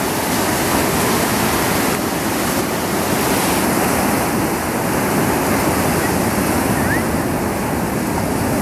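Heavy storm surf after a hurricane: big waves breaking, a steady, dense rush of water noise with no pauses.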